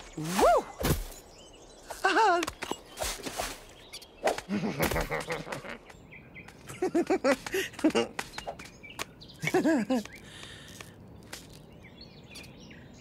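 Cartoon soundtrack: a character's wordless vocal sounds, short sliding exclamations and hums, mixed with knocks and thuds. In the last few seconds these give way to faint birdsong ambience.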